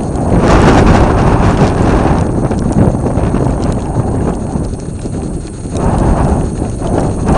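Wind buffeting the microphone in gusts: a loud, low rumbling rush that eases about five seconds in and swells again.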